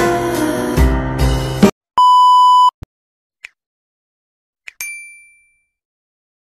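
Music with a beat cuts off suddenly, then a steady censor-style bleep tone sounds for under a second. A click, a short high blip and a single high ding that rings out follow.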